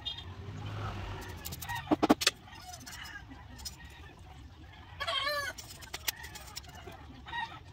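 Chickens calling, with one short, loud call about five seconds in and fainter ones near the end. A few sharp knocks about two seconds in, from the bamboo work.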